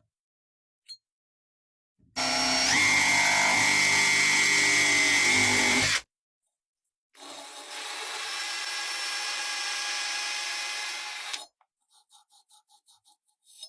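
A handheld power tool running in two bursts of about four seconds each, the first louder with a steady whine that steps up in pitch just after it starts, followed near the end by a quick series of about eight short ticks.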